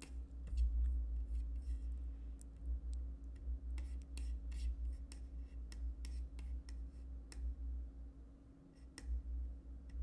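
Typing on a computer keyboard: irregular runs of key clicks, thickest in the middle, with a couple more near the end, over a low steady background rumble.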